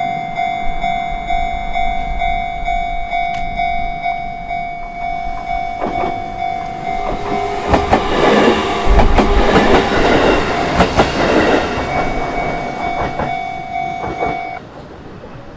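Japanese level-crossing warning bell ringing in a fast, even rhythm while a JR Gotemba Line train passes, loudest in the middle, its wheels clattering over the rail joints. The bell stops shortly before the end.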